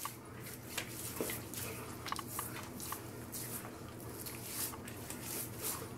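Hands rubbing an aftershave splash into wet skin of the face and scalp: faint wet rubbing with many small scattered pats and clicks.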